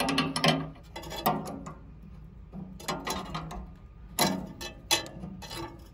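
A spanner clicking and clinking on the nuts of a Ferguson TD20 tractor's governor linkage as they are adjusted: irregular sharp metallic clicks, the loudest about four seconds in and again near five seconds.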